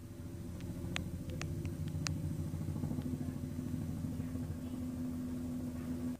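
A motor or engine running steadily, with a few sharp clicks between one and two seconds in and a steady hum that joins about halfway and stops abruptly at the end.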